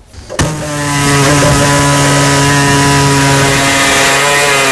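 Reciprocating saw starting up and cutting through sheet metal to enlarge a hole, running loud at a steady pitch.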